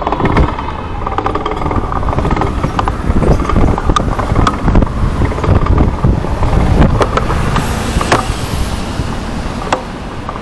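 City street traffic heard from a moving bicycle, with a heavy low rumble and many short sharp clicks and rattles.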